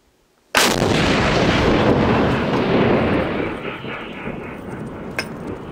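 A 130 mm towed field gun (Soviet M-46 type) firing a single round: a sudden loud blast about half a second in, followed by a long rumble that slowly fades over the next few seconds. A brief sharp click comes near the end.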